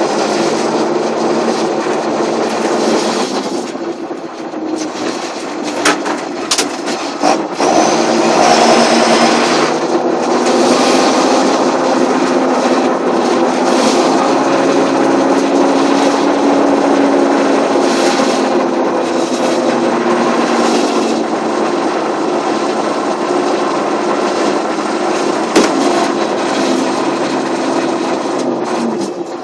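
Turbocharged diesel engine of a John Deere 7530 tractor running steadily under load, with the turbocharger's whistle over the engine note.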